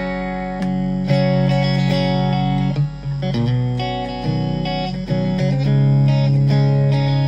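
Electric guitar played through a Blackstar ID:CORE Stereo 10 V2 practice combo amp on its Clean Bright voice, which the player takes for a model of a Fender clean. Clean chords and notes ring out, each held for a second or two before the next.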